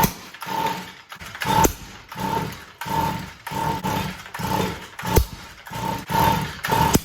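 Stihl MM55 Yard Boss engine being pull-started over and over, the recoil starter rope whirring on each quick pull, about one and a half pulls a second, with a few sharp pops among them. The pops are the engine backfiring instead of starting, which the owner puts down to a failed ignition coil.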